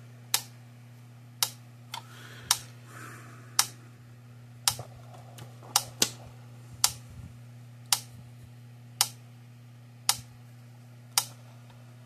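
Gallagher M800 electric fence charger firing under a 500-ohm test load: a sharp click about every 1.1 seconds, the unit's normal pulse rate, over a steady low hum.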